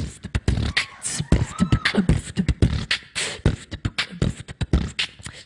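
A woman beatboxing into a handheld microphone: fast, steady mouth-made drum patterns of deep kick thumps, snares and sharp hi-hat clicks, with a brief held tone about a second and a half in.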